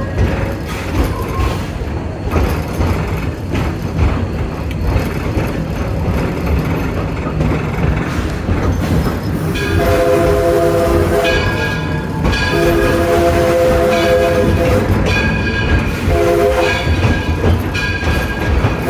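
Steam locomotive's multi-note chime whistle blowing four blasts, long, long, short, long, starting about ten seconds in: the standard grade-crossing signal. Under it, the train running makes a steady rumble and clatter.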